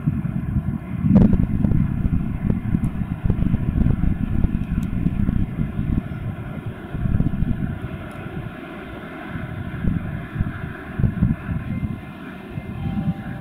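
2TE116 diesel locomotive approaching with a freight train, its diesel engines running with the jet-like drone that gives the class its nickname "Boeing". A continuous low rumble with irregular thumps, the loudest about a second in.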